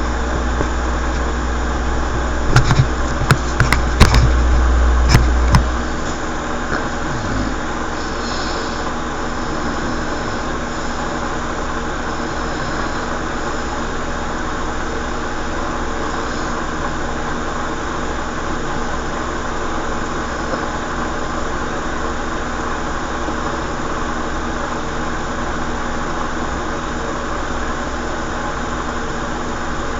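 Steady mechanical hum, with a heavy low rumble and several sharp clicks in the first six seconds.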